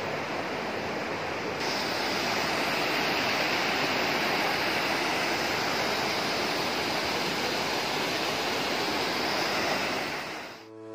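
Mountain stream rushing over rocks in a small cascade: a steady rush of water that grows a little louder about a second and a half in and fades out near the end.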